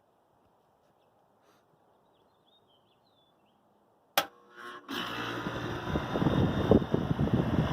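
1980s ComfortMaker central air conditioner's outdoor condensing unit starting up: a sharp click about four seconds in, then a second later the compressor and fan come on and run loudly and steadily with an uneven low rumble.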